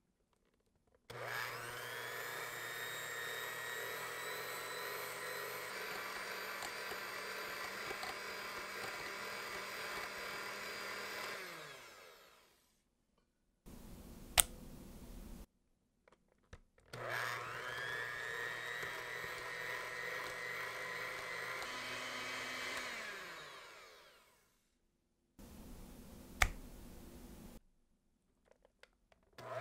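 Electric hand mixer beating butter into custard in a glass bowl: the motor whine rises as it comes up to speed, runs steadily for about ten seconds, then sinks as it winds down. A second run of about six seconds follows and winds down the same way, and a single sharp click comes between the runs and another near the end.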